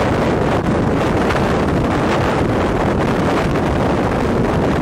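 Strong tornado wind rushing and buffeting the microphone in a loud, steady rush of noise.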